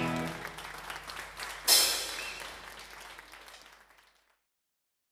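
Audience applauding as the band's last note dies away, with a louder burst under two seconds in; the sound fades out to silence about four seconds in.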